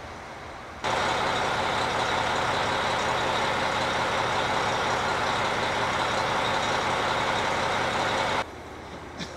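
Diesel multiple unit of the Hokuto limited express (KiHa 261 series) standing at the platform, its engines idling, heard as a loud, steady mechanical noise close beside the car. The noise starts abruptly about a second in and stops abruptly near the end, leaving a quieter steady rumble and a couple of light clicks.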